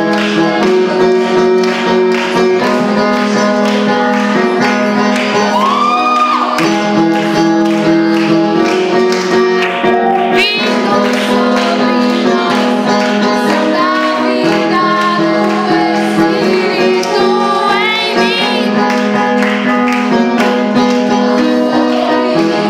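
Female voices singing a song over instrumental backing with sustained chords and a steady beat.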